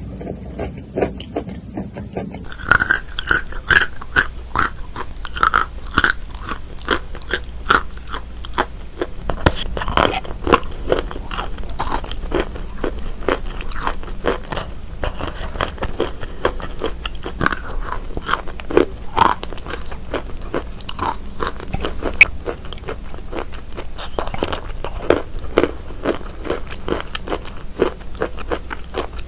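Close-miked chewing and crunching of wet chalk mixed with clay paste: a dense run of small, moist crunches, softer for the first couple of seconds.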